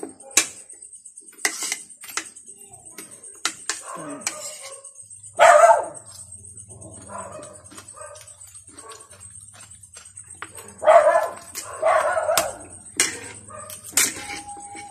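A dog barking in short single barks, once about five seconds in and several times near the end, over light clicks of a spoon and fork against a plate.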